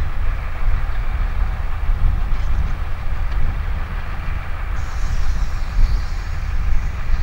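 Heavy diesel engines running steadily, a deep rumble with a noisy upper layer; a higher hiss joins about two-thirds of the way through.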